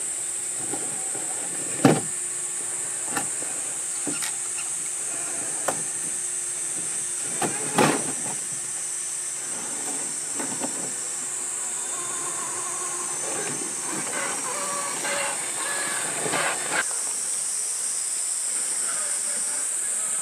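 Axial SCX6 1/6-scale RC rock crawler creeping over boulders: a faint steady electric motor whine with sharp knocks as the tyres and chassis hit rock, the loudest about two seconds in and again near eight seconds, over a steady high hiss.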